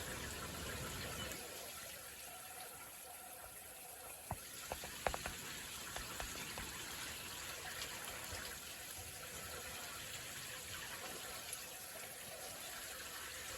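Rain falling steadily, an even hiss, with a few sharp taps a little over four seconds in.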